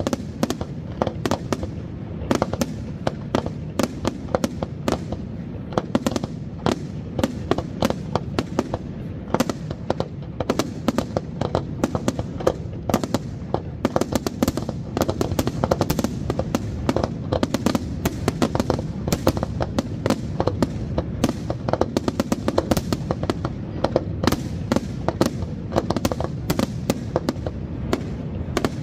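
Aerial firework shells bursting in rapid succession: a dense barrage of sharp bangs, several a second, over a continuous low rumble.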